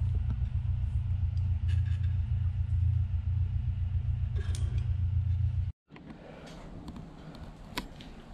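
Steady low rumble with a couple of sharp clicks as a blue splice connector is squeezed shut with pliers onto a turn-signal wire. About two-thirds of the way through it cuts off abruptly, leaving a quieter room with light clicks and shuffling.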